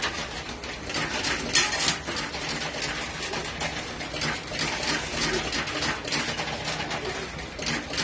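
Coins clinking and clattering in a coin pusher arcade machine as coins are fed into the slot and drop onto the moving pusher shelves, a continuous jangle of small metallic clicks over a steady low hum.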